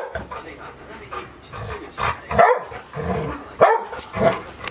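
Dogs barking: a series of short, separate barks spread across a few seconds.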